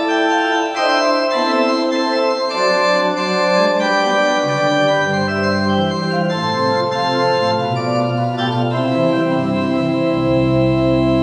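Two-manual church organ playing a slow Baroque piece in sustained chords with a moving line. Pedal bass notes come in about halfway through, and a deep pedal note sounds near the end.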